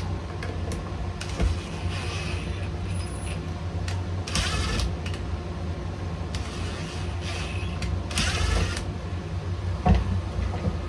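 Metal parts and hand tools being handled during reassembly of a Makita EK6100 stone saw: a series of short scrapes, rasps and clanks, with a sharp knock near the end. A steady low hum runs underneath.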